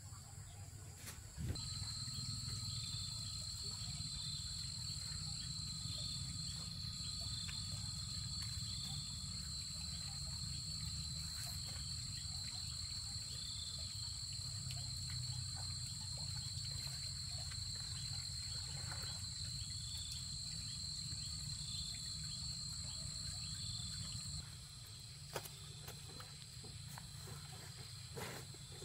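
Insects calling in a steady high-pitched drone over a low rumble. It sets in about a second and a half in and cuts off sharply a few seconds before the end.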